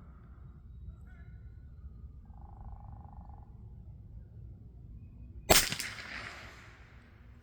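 A single shot from a Ruger Precision Rimfire .22 LR rifle about five and a half seconds in: a sharp crack with an echo dying away over about a second and a half.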